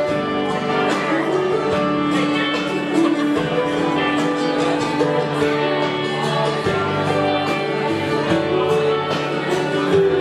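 A recorded song playing over the hall's loudspeakers, carried by plucked acoustic guitar.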